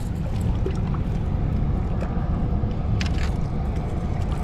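Steady low rumble of wind buffeting a chest-mounted action-camera microphone, with a short sharp noise about three seconds in.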